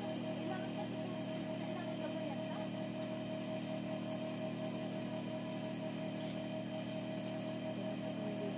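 Steady electric hum of an idling sewing-machine motor, holding a few fixed tones at an even level, with one faint click about six seconds in.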